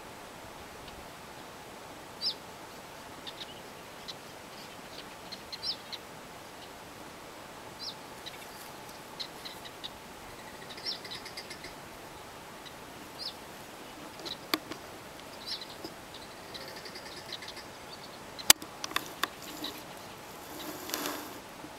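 Birds chirping now and then in short high notes over a faint steady background. A single sharp click comes about three-quarters of the way through, with a few softer clicks around it and a brief rustle near the end.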